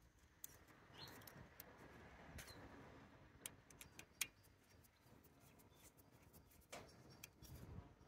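Faint small clicks and taps of hands working a differential pressure switch: wire ends going into its brass terminals and a screwdriver on the terminal screws, with one sharper click about four seconds in.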